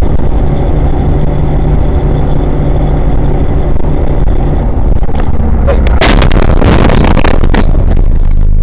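A car's engine and road noise drone steadily inside the cabin, then about six seconds in a loud collision breaks in: a crash of impact and scraping lasting over a second, with a few sharp knocks near its end.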